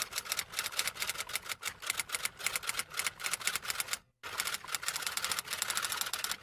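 Typing sound effect: a rapid, even clatter of keystrokes, stopping briefly about four seconds in and then starting again.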